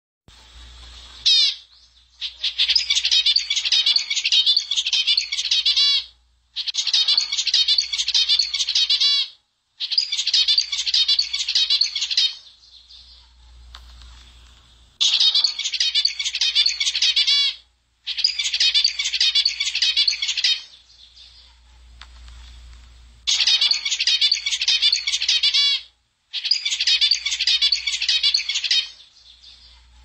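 Many small birds chirping busily together, in stretches of about three seconds that start and stop abruptly, with short gaps of near quiet between them.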